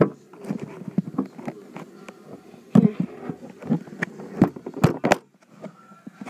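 Handling noise from a phone being moved about by hand: rustling and rubbing against the microphone with irregular knocks and taps, the loudest knocks near the middle and a cluster toward the end.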